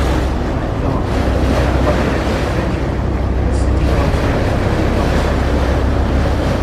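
Steady low rumble of a Mersey ferry's engine under way, with water rushing past the hull and wind buffeting the microphone.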